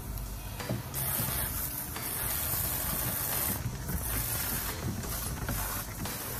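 Garden hose running water into a plastic kiddie pool, a hissing spray that comes and goes in stretches.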